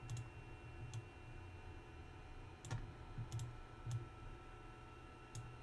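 Computer mouse clicking every second or so, with a cluster of clicks partway through, while on-screen video layers are dragged and resized.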